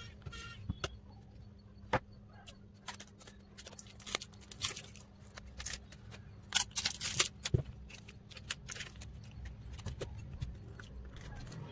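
Quick clicks, taps and scrapes of small tools, screws and plastic parts being handled as a smartphone is taken apart, sped up by fast-forwarding.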